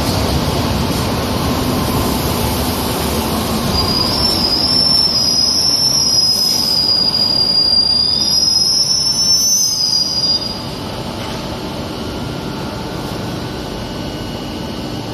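Madrid Metro train running in a station, with a steady rumble and its wheels squealing in a high, wavering tone from about four seconds in until about ten seconds in, after which the running noise drops somewhat.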